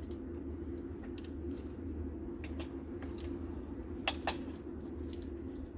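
A steady low hum with scattered light clicks and a sharper click about four seconds in.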